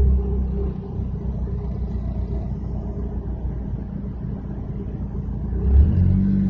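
Subaru Vivio four-cylinder engine running with an abnormal noise, the sound of its timing belt slipping where the belt's back side drives the water pump, so the pump is not being turned properly. The engine note swells briefly at the start and again near the end.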